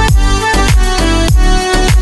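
Background music with a steady beat and deep bass hits that fall in pitch.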